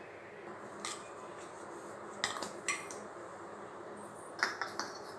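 Silver pooja items (lamps, bowls, small dishes) clinking against each other and a steel plate as they are handled and set down: a handful of light metallic clinks, with a cluster of them near the end, over faint steady background noise.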